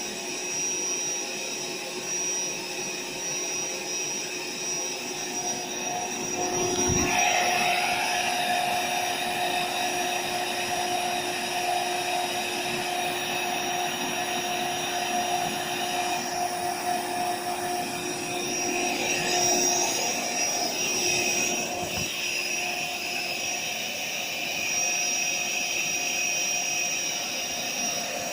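AeroBed Deluxe Raised air mattress's built-in electric pump running steadily, a fan-like hum over a rush of air as it blows up the mattress. Its tone shifts slightly about a quarter of the way in, and there is a short knock about three-quarters through.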